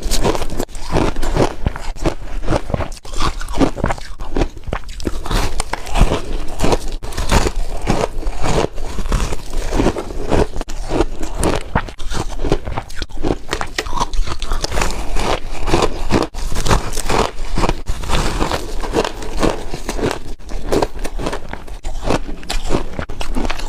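A person biting and chewing chunks of refrozen shaved ice close to the microphone: a constant run of loud crunches, several a second.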